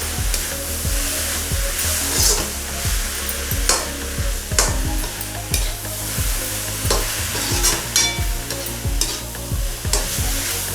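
Chopped vegetables with soy sauce sizzling in a hot frying pan, stirred with a spatula, with repeated scraping strokes against the pan over a steady frying hiss.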